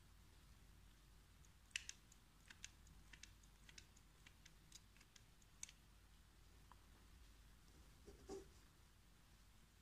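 Near silence broken by a run of faint, irregular small clicks for about four seconds, from a hot glue gun being worked while wires are glued in place; a soft knock comes near the end.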